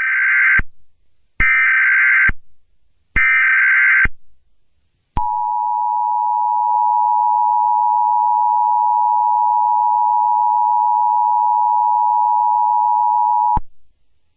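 Emergency Alert System alert opening: three short bursts of SAME header data, about a second and a half apart, then the steady two-tone EAS attention signal, held about eight seconds before it cuts off sharply.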